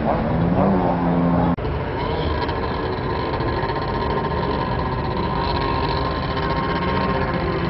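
Snowmobile engines running; the pitch rises and falls for the first second and a half, then the sound cuts abruptly to a steadier engine drone.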